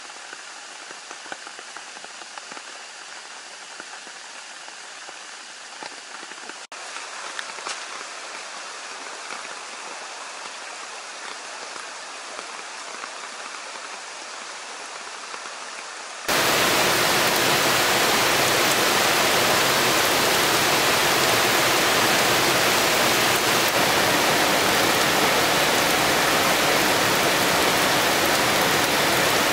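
Steady rain, with the rush of a swollen, muddy stream; about halfway through, it cuts suddenly to a much louder, heavy downpour hammering on the ground.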